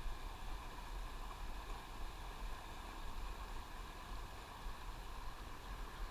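Steady hiss of river water around a wading angler, with a low, uneven rumble underneath.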